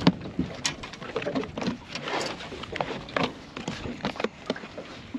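Plastic berley bucket being handled and its snap-on lid worked open on an aluminium boat: irregular knocks and clicks with a few short squeaks.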